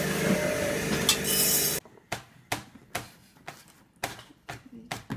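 Busy shop background noise that cuts off suddenly, followed by a kitchen knife chopping fresh herbs on a plastic cutting board: sharp knocks about two a second.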